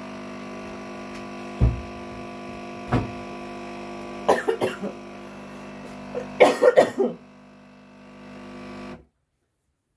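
A woman coughing in two bouts, over the steady electric hum of an appliance, with two sharp knocks before the coughs. The hum cuts off abruptly about nine seconds in.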